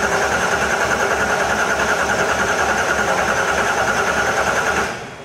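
Electric starter cranking a Case 621 loader's Cummins 5.9 six-cylinder diesel, a rapid even chug of compression strokes under a steady whine, on the first start attempt after a fuel injection pump replacement. The cranking stops about five seconds in without the engine catching.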